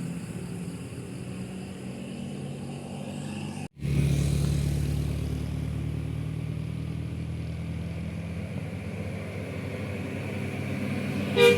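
Engine of a heavy road vehicle running steadily up a climb. The sound drops out for a moment about four seconds in and comes back louder. A short, loud horn note sounds right near the end.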